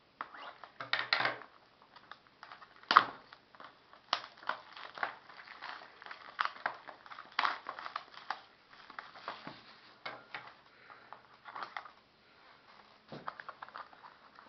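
Irregular crinkling and crackling of packaging being handled and torn as a sealed box of baseball cards is opened, with one sharp crack about three seconds in.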